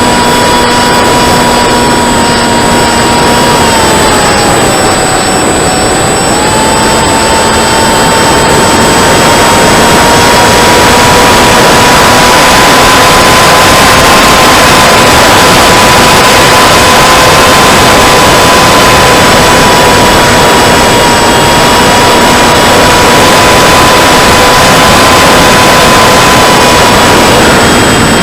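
Onboard sound of a 2216 2000 kV brushless motor spinning a 7x5 APC propeller in flight: a steady high whine that drops in pitch about four seconds in and then climbs back. Heavy wind rush runs over it.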